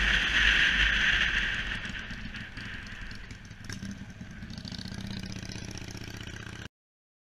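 Riding a Yamaha YBR125 motorcycle: wind rushing past the camera fades as the bike slows, leaving the quieter running of its single-cylinder engine. The sound cuts off suddenly near the end.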